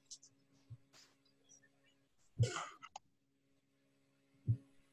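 Faint steady electrical hum on a video-call audio line, broken by two short coughs, one about two and a half seconds in and one near the end.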